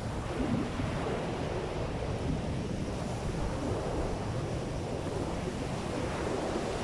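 Ocean surf breaking and washing up a sandy beach, a steady rushing wash, with strong onshore wind buffeting the microphone.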